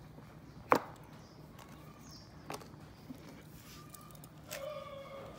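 Handling noise from a wristwatch being put down or picked up. There is a sharp click about three-quarters of a second in and a fainter knock about two and a half seconds in, over low background hiss.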